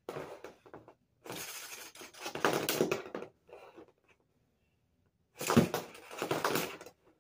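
Hard plastic Lego pieces clattering and rattling as Lego spinning tops are handled, set down and spun on a hard floor, in three bursts with short quiet gaps between.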